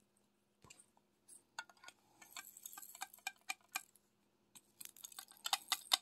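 Faint light clicking and rattling of small plastic pieces as diamond painting drills and their tray are handled and put away. The clicks come in loose clusters that grow busier after about two seconds.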